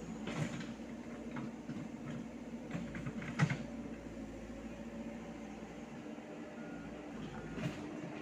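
Komatsu PC78US mini excavator's diesel engine running steadily, with a few sharp knocks, the loudest about three and a half seconds in.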